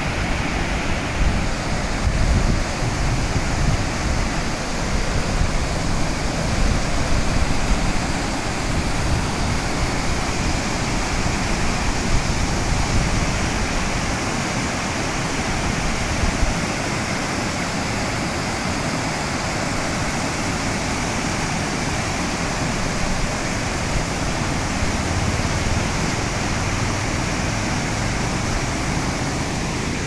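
Elappally Waterfall rushing steadily over rocks, a continuous roar of falling water.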